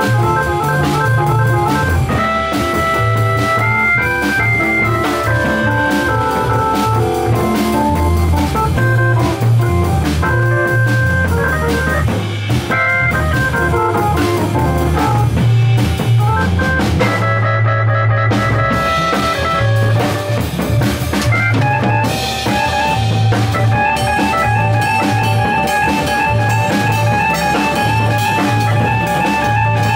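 Band music led by a two-manual drawbar organ playing melodic runs that climb and fall, over drums and a low bass line. In about the last third the organ changes to steadily repeated chords.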